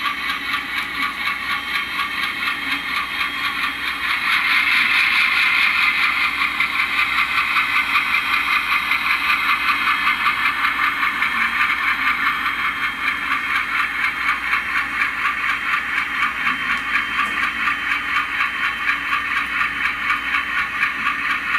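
Atlas C424 model locomotive's factory LokSound decoder playing a 12-cylinder 251 diesel engine sound through its small onboard speaker: a steady rhythmic chug with no bass, about four or five beats a second. It grows louder about four seconds in.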